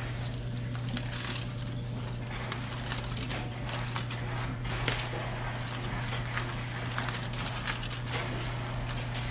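Aluminium foil crinkling and crackling in scattered bursts as a foil packet is unfolded and flattened by hand, over a steady low hum.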